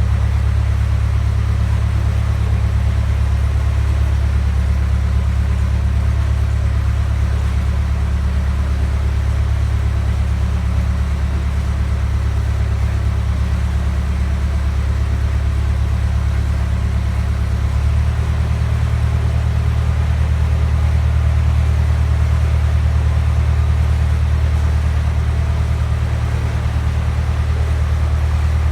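Narrowboat engine running steadily at cruising speed inside a canal tunnel, a continuous low throbbing note that changes slightly about two-thirds of the way through.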